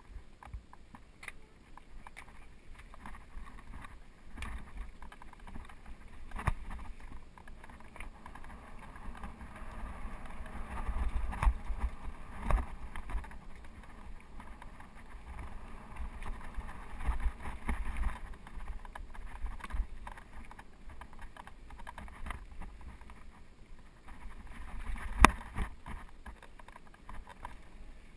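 Mountain bike rolling down a rocky dirt singletrack: tyres running over dirt and loose stones, the bike rattling and knocking over bumps, with a low rumble of jolts on the camera mount. The riding gets rougher about a third of the way in, and there is one sharp knock near the end.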